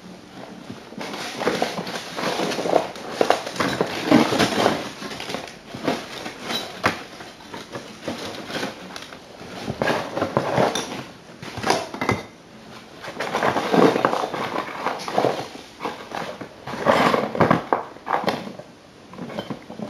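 Rummaging through boxes of assorted odds and ends: irregular rustling, clattering and clicking as items are handled and moved. It starts about a second in and comes in bursts with short pauses.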